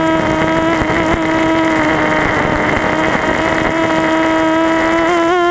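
Multirotor drone's electric motors and propellers whining steadily in flight, heard through the onboard camera's microphone, with a brief wobble in pitch near the end.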